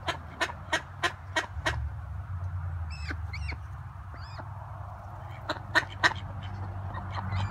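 Ducks quacking: a quick run of about six quacks, roughly three a second, then a few high, sliding chirps, and three more quacks near the end. A steady low hum runs underneath.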